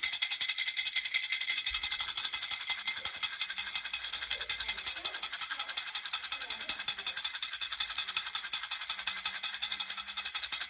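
Baby rattle shaken steadily in a fast, even rhythm, about seven or eight shakes a second.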